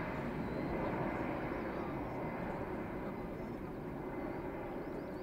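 Airbus A319 airliner's twin jet engines at climb power as it departs, a steady low roar that slowly fades as the aircraft draws away.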